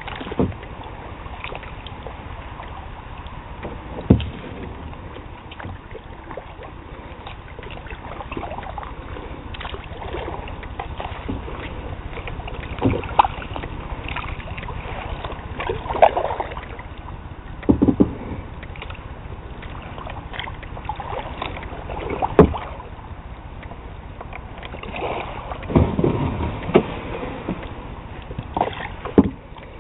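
Kayak being paddled: paddle strokes in the water over a steady background haze, with several sharp knocks spread irregularly through.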